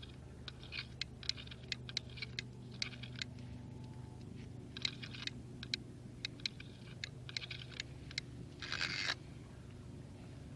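Scattered light clicks and small scrapes of ice-fishing gear being handled, with a longer scraping rush about nine seconds in, over a steady low hum.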